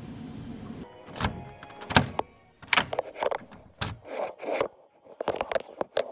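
Low bus cabin rumble that cuts off about a second in, followed by a string of sharp clicks, knocks and rustling from a phone camera being handled and set up at close range.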